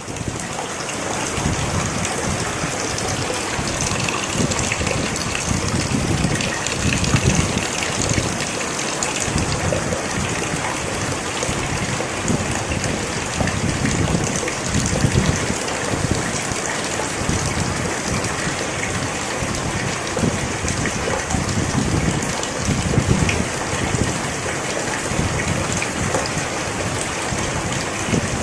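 Heavy rain falling steadily, a dense even hiss, with low rumbling swells that come and go every few seconds.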